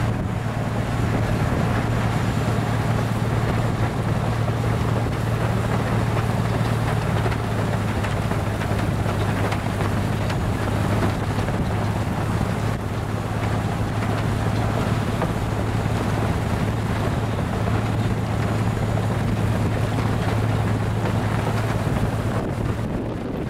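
Railway rotary snow blower working through deep snow: a steady low engine hum under a continuous rush of snow being cut and thrown.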